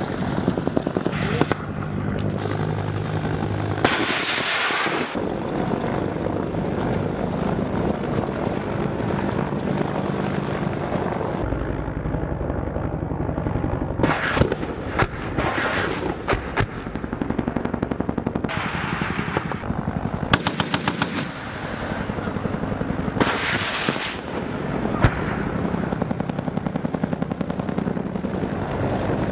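Bursts of rapid automatic gunfire from a helicopter at night, over the steady drone of the helicopter's engine and rotor.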